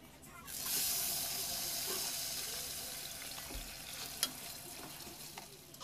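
Rice poured into hot oil with cumin seeds in an aluminium pot, sizzling loudly from about half a second in and slowly dying down as it is stirred. A metal spoon clinks against the pot once near four seconds.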